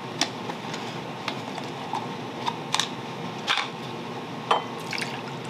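Plastic deli container of milk being opened: a series of short sharp plastic clicks and snaps as the lid is worked off, over a steady fan-like background hum.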